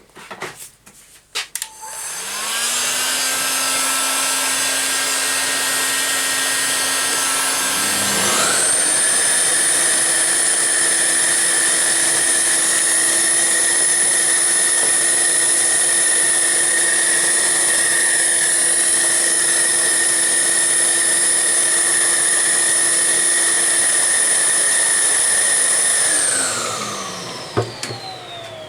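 Wood lathe motor starting up with a steady whine, stepping up to a higher speed about a third of the way in, then switched off near the end and coasting down with falling pitch. A few clicks come just before it starts.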